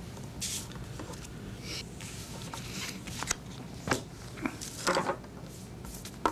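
Paper being handled and cut: irregular crisp rustles and snips, with a faint low room hum underneath.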